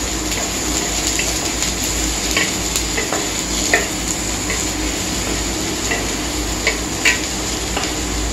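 Chopped onion, green chilli, capsicum and beans sizzling in oil in a non-stick kadai while a wooden spatula stirs them, with irregular light knocks and scrapes of the spatula against the pan over a steady frying hiss.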